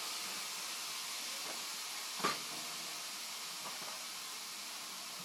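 Steady hiss of steam from a handheld steam cleaner's nozzle. About two seconds in there is a single sharp crack.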